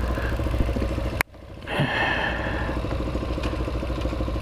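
Hawk 250 motorcycle engine idling steadily while the bike stands still. About a second in there is a sharp click, and the sound drops out for about half a second before the idle returns.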